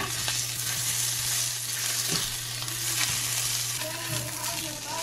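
Sausages sizzling steadily as they fry in a pan, being stirred and turned with a spatula.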